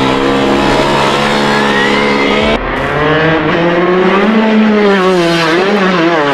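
Shifter kart's two-stroke engine running hard, holding a steady high note at first, then after a sudden break about two and a half seconds in, its pitch rises and falls as the kart accelerates and lifts through the corners.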